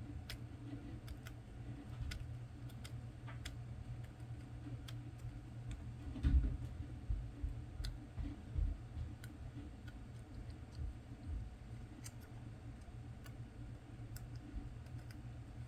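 Small irregular clicks and ticks of a hand tool picking at rubber seal material inside a chart plotter's SD card reader slot, with one duller knock about six seconds in.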